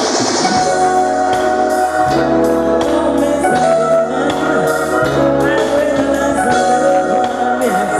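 Reggae riddim playing through a sound system: a steady bass line and regular drum beat with a melody line over it.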